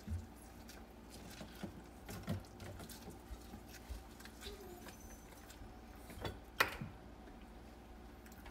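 Faint kitchen handling noises: soft squishy sounds and scattered small clicks as lemon halves are squeezed over a blender jar, with one sharper click about six and a half seconds in. The blender is not running.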